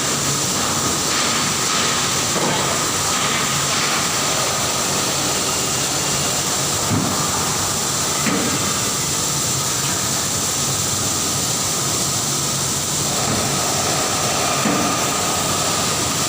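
Automatic spot-welding machinery running: a steady machine hiss and hum with a high whine, and a few faint clicks.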